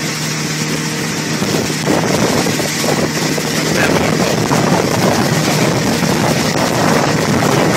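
Motorboat engine running steadily at speed while towing a wakeboarder, heard from aboard with the rush of wind and churning wake. From about three and a half seconds in, the rushing noise grows and covers the engine's hum.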